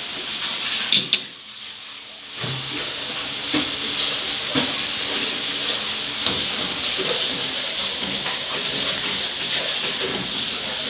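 LG automatic washing machine filling with water on a test run, a steady hiss of water rushing into the tub, with a few light clicks.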